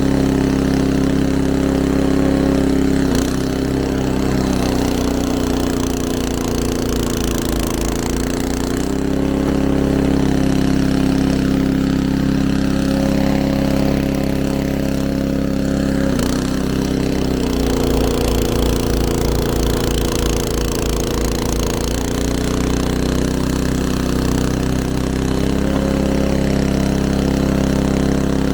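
Snowblower's small petrol engine running steadily, its pitch dropping briefly and recovering about three seconds in and again about sixteen seconds in.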